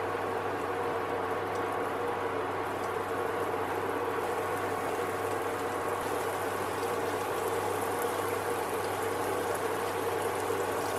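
Cheese slices sizzling and bubbling as they melt in a hot aluminium nonstick frying pan. A steady hum runs underneath.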